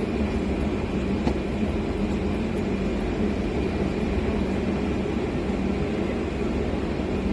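Steady mechanical drone with a constant low hum, unbroken throughout.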